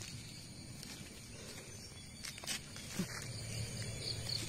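Faint scraping and a few light taps of a knife and stick digging in soil, over a steady low outdoor background.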